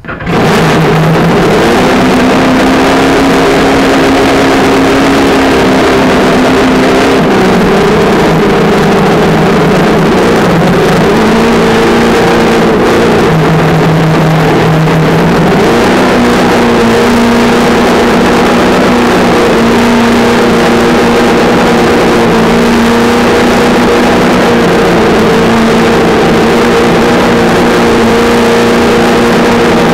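Traxxas Slash 2WD RC truck heard from its onboard camera: the brushed electric motor and drivetrain whining under power, with tyre noise from the gravel and asphalt. The sound is loud and steady, and the motor's pitch steps up and down every few seconds as the throttle changes.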